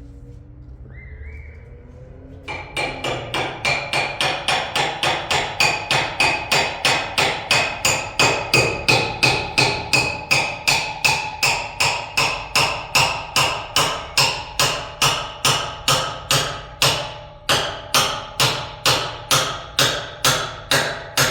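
Steady hammering on metal, starting a couple of seconds in: about three blows a second, each one ringing, as the carpet cleaning machine's metal parts are worked during its bearing replacement.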